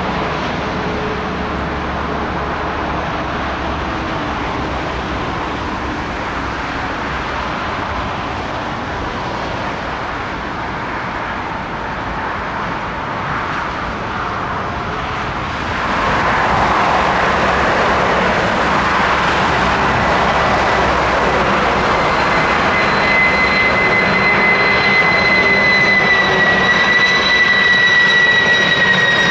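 Jet engine noise of landing widebody freighters. First a Boeing 777-200F, its engine tones slowly dropping in pitch. Then, after a jump in loudness a little past halfway, a Boeing 747-400F on approach, with a high engine whistle setting in and gliding slightly down near the end.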